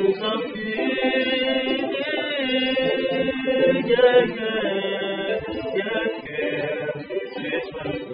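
Singing over an electronic keyboard: held, gliding sung notes on top of steady keyboard chords.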